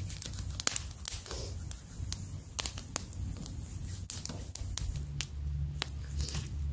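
Small wood campfire crackling, with sharp irregular snaps and pops of burning dry sticks.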